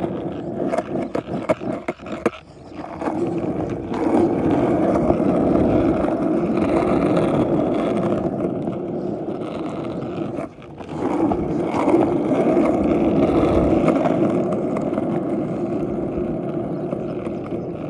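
Skateboard wheels rolling over rough asphalt, a continuous rumble, with a few knocks in the first couple of seconds and a brief drop about halfway.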